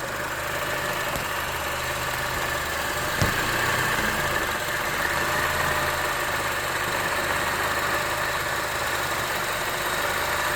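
Honda CR-V engine idling steadily with a faint steady whine over it, and one sharp click about three seconds in.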